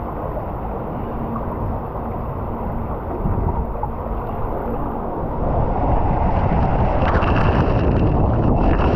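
Water running down a fibreglass water slide. From about six seconds in, this gives way to a louder rush of wind on the microphone and water spraying and splashing over the camera as the rider slides down fast.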